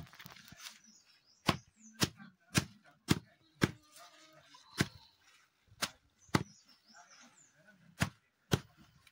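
Heavy chopping knife striking down through a pile of fresh leaves onto a wooden chopping block: about ten sharp chops, a run of five about half a second apart, then single chops and pairs with short pauses between.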